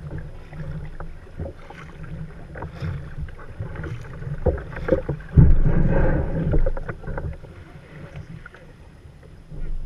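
Kayak paddle strokes dipping and splashing, with water sloshing around a sea kayak's hull as it comes into shallow water. A low rumble of wind on the microphone runs underneath, and there is a louder rush of water and wind about halfway through.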